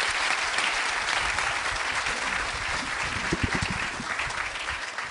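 Large seated audience applauding: dense, steady clapping from many hands that starts to thin out near the end.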